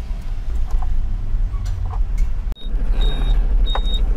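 Tata 1412 truck's diesel engine idling steadily with a few light clicks of wiring being handled. About two and a half seconds in, a sharp click, then a high-pitched electronic beep starts repeating about one and a half times a second.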